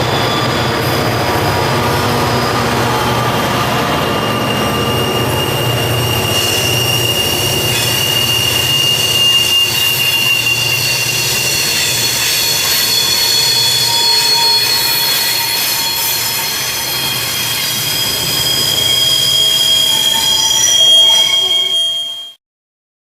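Coal train hauled by C class diesel-electric locomotives rolling along, wheels squealing in long high steady tones over the low hum of the diesels. The sound cuts off suddenly near the end.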